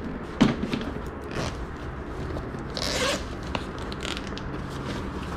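Items being handled and shifted about: a sharp knock about half a second in, then a short rasping scrape near three seconds in.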